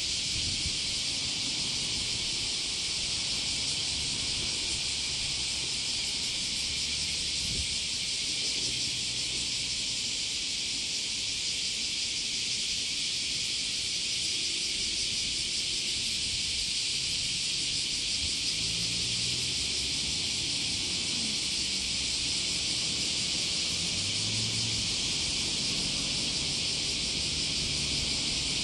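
Steady high-pitched hiss with no breaks or pulses, over a faint low rumble of wind on the microphone.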